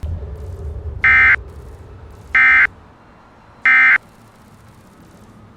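Three short, loud bursts of Emergency Alert System digital data tones, each about a third of a second long and spaced about a second and a quarter apart. This is the end-of-message signal that closes an EAS alert. A low rumble runs underneath and fades out.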